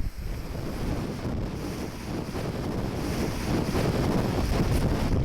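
Storm wind buffeting the microphone over rough sea surf, a steady noisy roar that grows stronger about halfway through.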